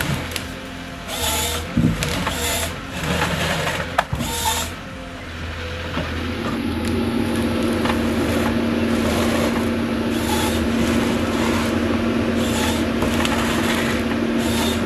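Machinery sounds: irregular clatter with a couple of sharp knocks for the first few seconds, then a steady engine hum holding one even pitch from about six seconds in.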